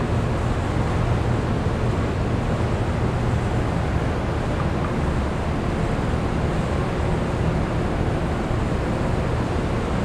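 Steady industrial machinery drone from a baler installation: a constant low hum under an even hiss, with no change in load.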